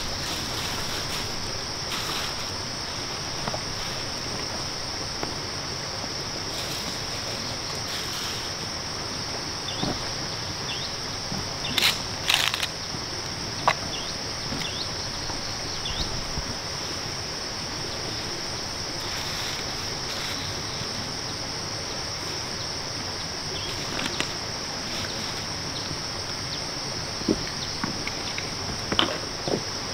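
Steady high-pitched drone of insects over outdoor ambience. It is broken now and then by short knocks and rustles from footsteps on stones and a plastic bag being handled, with a cluster of them about twelve seconds in.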